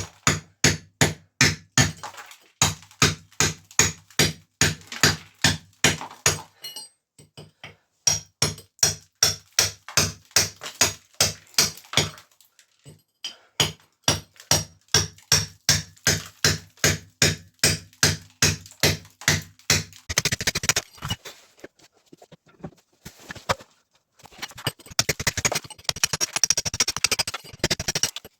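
Repeated hammer blows in quick runs, about three a second with short pauses between runs, knocking out an unidentified fitting in a bathroom floor. Near the end the knocking turns faster and denser, with scraping.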